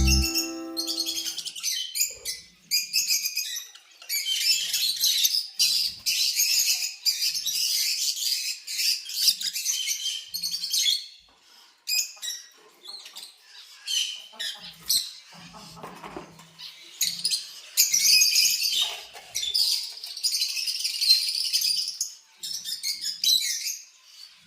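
Small pet parrots chattering and chirping in high, scratchy bouts lasting several seconds, with short pauses between them.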